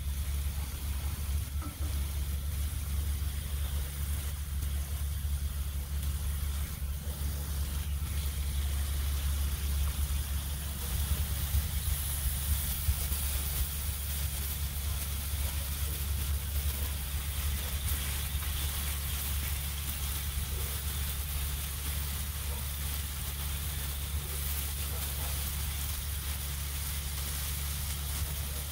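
Diced steak sizzling on a Blackstone flat-top griddle, a steady hiss that grows a little louder partway through, over a constant low hum.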